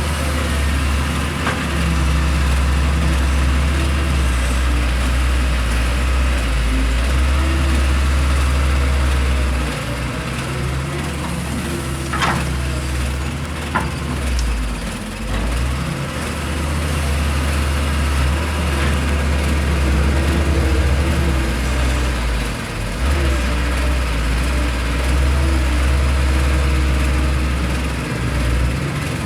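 Heavy diesel engine of a working excavator, its low drone swelling and easing in spells of several seconds as the load changes. Two short, sharp clicks sound about twelve and fourteen seconds in.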